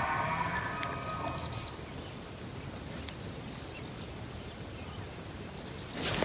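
Bull elk bugling: a long, high whistle that fades out a little under two seconds in. Small birds chirp throughout, and there is a short rustle at the very end.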